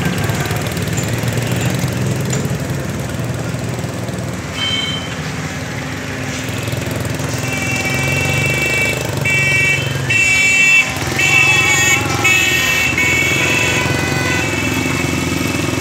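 Small tractor's engine running steadily, with a horn beeping once about four seconds in and then beeping repeatedly for several seconds from about halfway.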